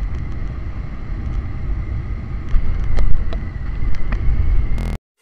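Bajaj Pulsar 180 motorcycle riding along at road speed, heard through a mounted action camera's microphone: a dense wind and road rumble with a faint steady high tone over it, and a few sharp ticks around three seconds in. The sound cuts off abruptly near the end.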